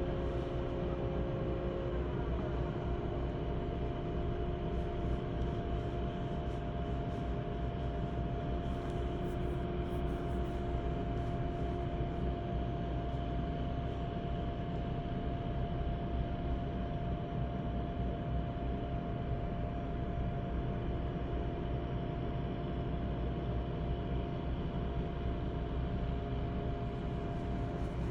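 Drilling rig machinery running with a steady, constant low drone and a few sustained tones over it. This is the engine-like noise that never stops at the site.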